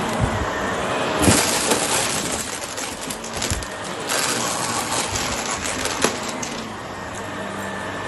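Shark upright vacuum cleaner running over carpet and sucking up small hard debris, which rattles and clicks through the nozzle and hose, with a few louder crackles.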